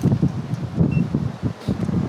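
Wind buffeting the microphone, an uneven gusty rumble.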